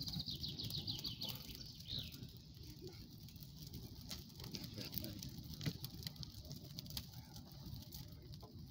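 Log bonfire burning, crackling with scattered sharp pops. A songbird sings a short descending trill near the start and calls once more shortly after.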